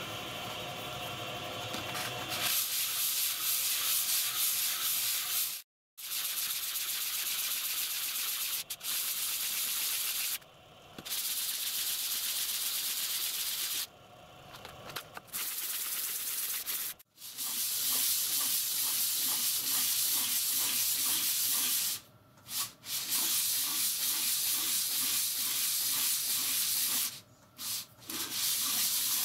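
Cast iron cylinder block rubbed face-down on a sheet of abrasive paper, a steady gritty scraping that starts a couple of seconds in and stops briefly several times.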